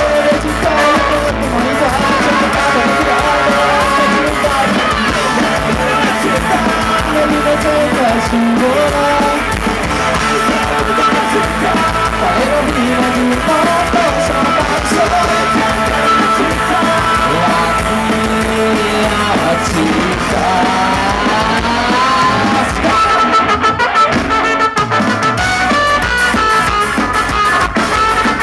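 Ska-punk band playing live and loud: electric guitars, drums and trumpet, with singing.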